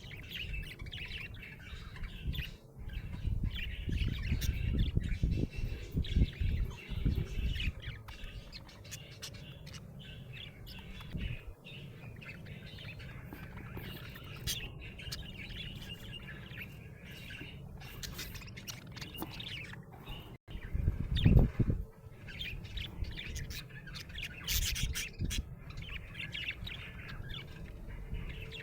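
Budgerigar chirping and warbling in a steady stream of short chirps and trills. Low rumbling bumps come in for several seconds early on and again briefly past the middle.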